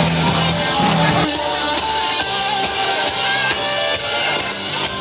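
Rock music playing, its bass notes shifting about a second in.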